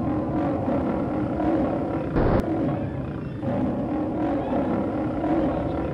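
Monster sound effect: a low, growling roar that comes in long swells, with a short, loud burst about two seconds in.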